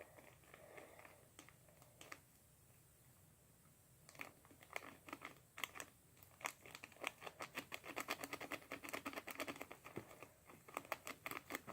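Faint crinkling and light crackling of a plastic packet of confetti glitter being handled. It starts about four seconds in as quick, irregular crackles.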